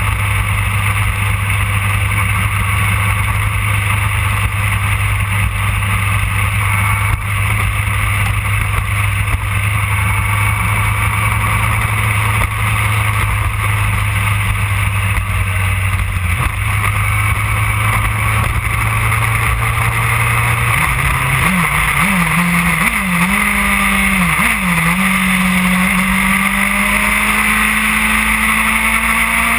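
2008 Yamaha R1's inline-four engine running steadily at cruising speed, with heavy wind rush. About two-thirds of the way through, the revs waver up and down with throttle changes, then climb steadily as the bike accelerates.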